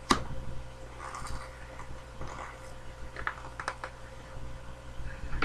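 Hands handling and picking at a cardboard mailing package: a sharp click at the start, then scattered taps, clicks and crinkling rustles.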